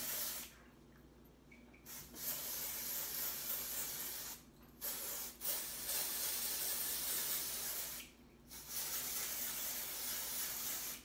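Aerosol can of pink temporary hair colour spray hissing in several long sprays with short pauses between them.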